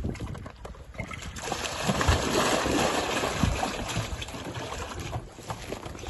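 Water and live trout pouring out of a tipped plastic barrel into a hole in the ice: a rush of splashing that builds about a second in and eases off near the end, with a few low thumps.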